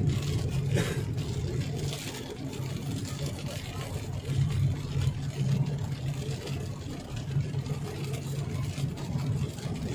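Steady low engine and road drone heard from inside a moving car on a wet road. Two brief swishes come about one and two seconds in.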